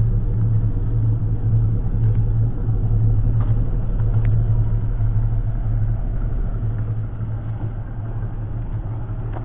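A motor vehicle's engine idling: a loud, steady low rumble that eases slightly over the last couple of seconds.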